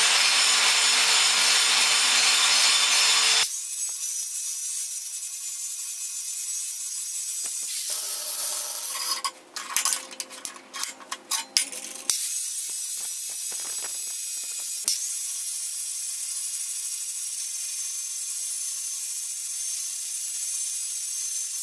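Handheld angle grinder running and grinding down high spots on a forged O1 tool steel blade, a steady grinding noise with a constant motor whine. The level changes abruptly a few times, and for a few seconds near the middle the sound comes in short, broken bursts.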